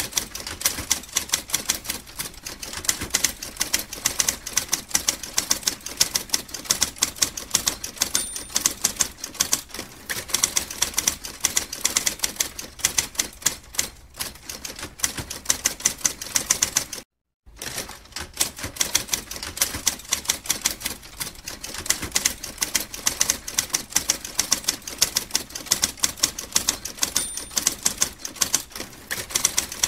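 Manual typewriter keys clacking in a rapid, continuous stream of sharp strikes, stopping for a moment a little past halfway before starting again.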